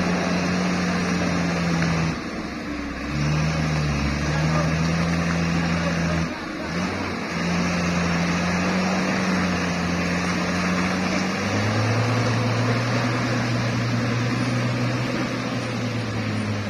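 Mitsubishi L300 pickup's diesel engine revving hard under load as the loaded truck struggles for grip climbing a muddy slope. The revs dip briefly twice, then settle lower with a deeper hum for the last few seconds.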